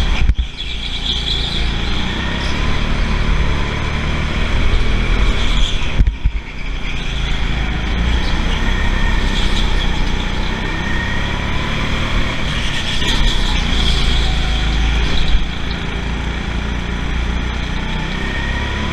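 Go-kart running at speed, heard from on board, its motor note rising and falling through the corners, with a brief break about six seconds in.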